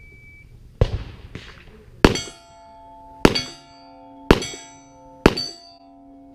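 Shot-timer beep, then handgun fire: two sharp cracks about a second in, then four shots about a second apart, each followed by the ringing clang of a steel target plate being hit.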